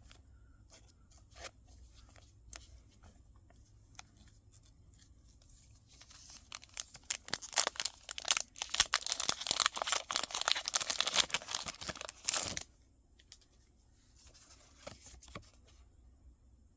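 Pokémon card booster pack wrapper being torn open and crinkled: a dense crackle lasting about six seconds in the middle, stopping suddenly, with light taps and card handling before and after.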